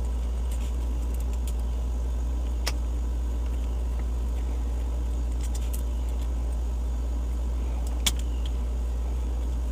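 Small metallic clicks and light jingling as the hex head screws of a bullet piercing valve are loosened and its two halves worked apart, a few sharp ticks scattered through. Under them a steady low hum.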